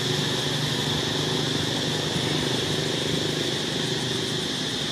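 An engine running steadily, under a constant high-pitched drone.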